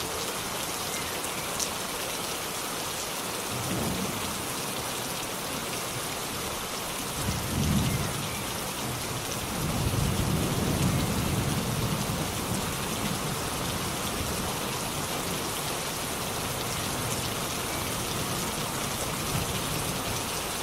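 Steady rain, with low rolls of thunder a few times: a short one about four seconds in, a louder one about eight seconds in, and a longer rumble from about ten to thirteen seconds.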